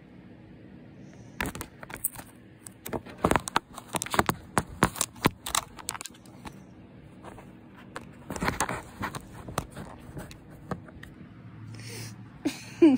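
Irregular sharp clicks and scrapes on a plastic laundry basket as a cat claws and bats at it, thick through the first half and again in a short spell a little later.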